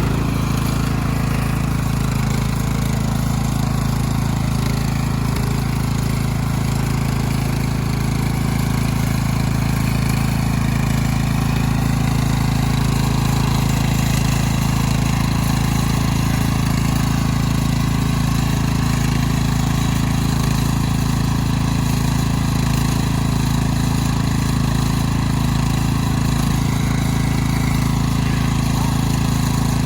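Tractor engine running loud and steady at a constant speed, with no revving.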